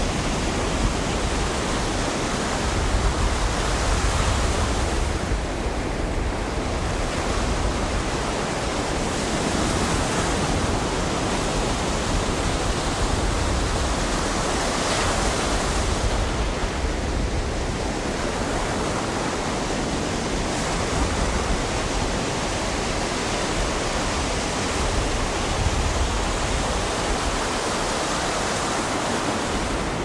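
Ocean surf: waves breaking and washing onto a beach in a continuous rushing wash that swells and eases as each wave breaks.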